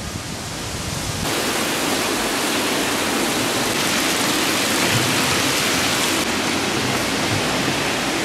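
Stone courtyard fountain splashing: a steady, loud rush of falling water that starts abruptly about a second in.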